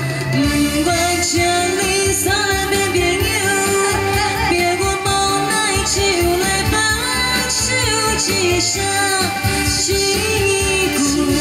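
Amplified Taiwanese Hokkien pop song: a female singer's melody over a backing track with a steady bass line.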